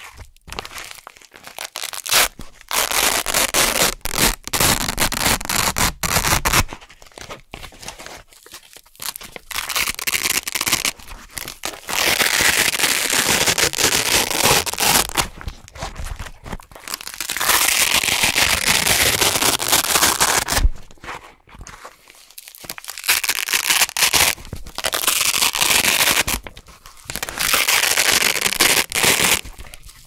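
Velcro hook circles being peeled off red loop fabric close to the microphone: a super crunchy, crackling rip, repeated in pulls lasting from about a second to several seconds with short pauses between them.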